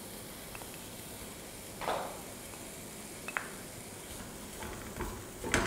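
A wooden spatula scraping and tapping in a non-stick pan as crumbled mawa (khoya) is dropped in and stirred, over a faint steady hiss. There is a soft scrape about two seconds in, a light click a little later, and louder scrapes and knocks near the end.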